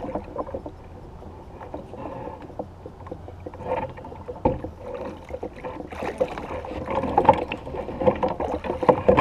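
Irregular knocks and rattles with water sloshing around a small fishing boat, getting busier and louder in the second half.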